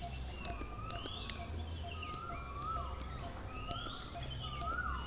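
Birds calling: short whistled notes that rise and fall, repeated several times, over a steady low hum.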